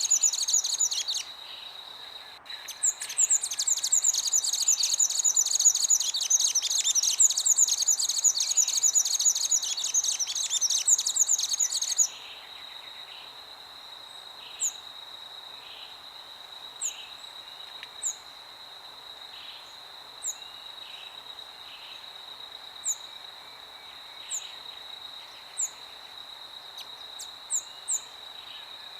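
Dense, rapid, high-pitched bird chattering that breaks off briefly near the start and stops abruptly about twelve seconds in. A steady high insect-like drone runs underneath throughout, and short high bird chirps come every second or two after the chattering stops.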